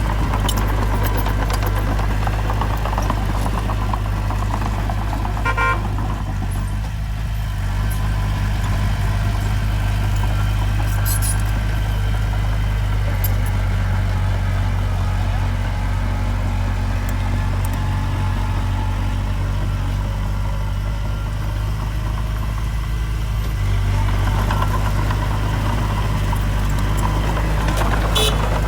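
Diesel engine of heavy earthmoving machinery running steadily, with a few brief sharp sounds about six and eleven seconds in and near the end.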